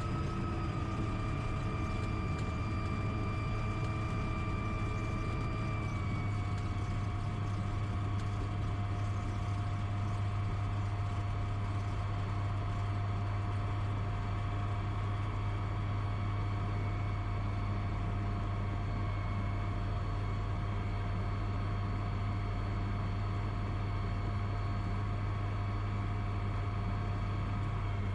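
DynAero MCR01 ultralight's engine and propeller running at taxi power, heard from inside the cockpit. It is a steady drone with faint whining tones above it, which drop slightly in pitch about six seconds in as the aircraft slows to a stop.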